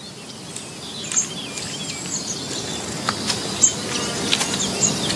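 Outdoor ambience of small birds chirping repeatedly over a steady hiss of insects that grows slowly louder, with a few sharp clicks and a brief rapid rattle near the end.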